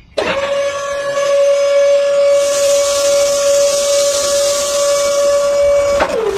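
A long whistle-like tone held at one steady pitch for about six seconds, with a hiss joining about two seconds in; the tone slides down in pitch as it ends.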